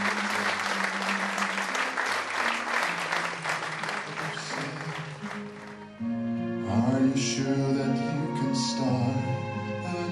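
Audience applauding over music, the clapping dying away over about six seconds. Then a new piece of music with singing cuts in abruptly.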